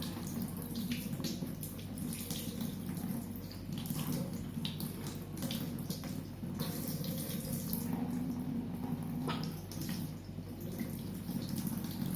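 Water running steadily from a tap into a sink while hands are washed under it, with small splashes and knocks now and then.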